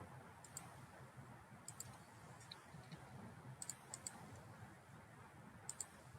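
Computer mouse buttons clicking, several times in quick pairs, over faint room noise.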